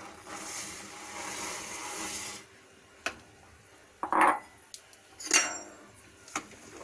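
Sugar poured into a pot of boiling milk, a steady hiss for about two and a half seconds, followed by a few clanks and scrapes of a metal spoon against the pot, the loudest a little after four seconds.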